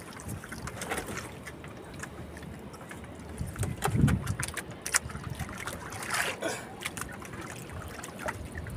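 Sea water lapping and splashing against the side of a small wooden outrigger boat as a hand reaches in and works the trap line, with a low thump about four seconds in.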